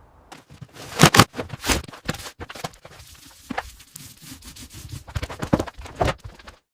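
Debris being scraped and handled: a run of knocks, scrapes and crackles, loudest about a second in and again near the end, then cutting off suddenly.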